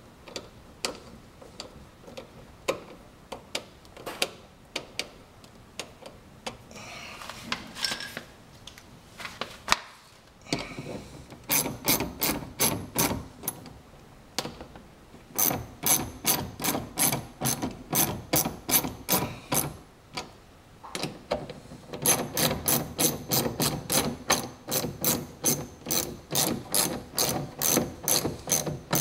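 Hand socket ratchet clicking as it tightens the screw that holds a mud flap. Scattered single clicks for about the first third give way to long runs of quick, even ratchet clicks, broken by two short pauses.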